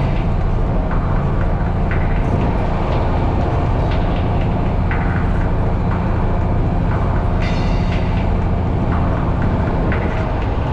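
Unimog diesel engine running steadily under load, with scattered knocks and rattles from the truck over rough ground.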